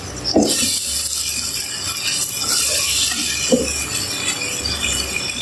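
Boneless chicken pieces in a spiced soy-and-vinegar masala sizzling steadily in a pan, with a few short clinks of a utensil against the pan.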